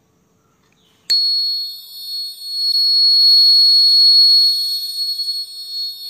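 Small piezo buzzer on a 9-volt battery starts suddenly about a second in and holds a steady high-pitched tone: the door-opening burglar alarm triggered as the X-ray strip is pulled out of the clip switch, completing the circuit.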